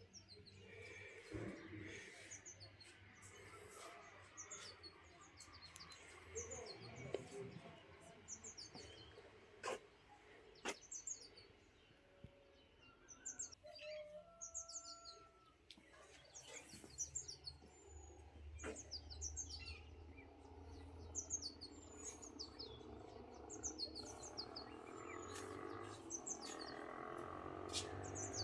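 Faint small birds chirping, a quick run of short high chirps repeated again and again, with a few sharp clicks among them.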